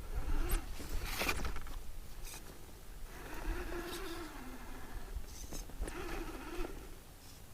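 Axial SCX10 II RC crawler's sealed-can 35-turn brushed motor and geartrain whining in three short throttle pulls, the pitch rising and falling with the throttle. A sharp knock comes about a second in.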